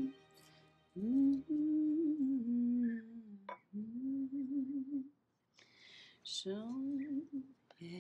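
A woman humming a slow, wavering tune to herself in a few short phrases, with a sharp click about halfway through.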